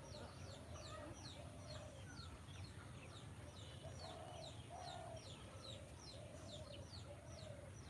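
Faint chorus of birds: quick high chirps sliding downward, several a second, over lower repeated calls.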